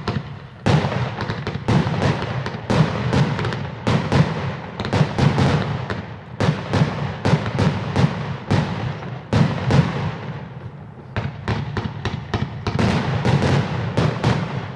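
A firework going off in a rapid, dense string of sharp bangs and cracks over a low rumble, several reports a second, thinning briefly about two thirds of the way through before picking up again.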